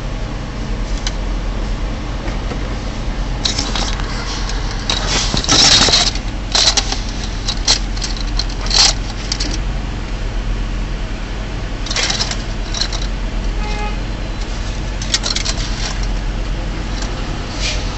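Semi truck's diesel engine idling with a steady low hum, with bursts of short sharp clicks and rattles, most of them about four to ten seconds in and a few more around twelve and fifteen seconds in.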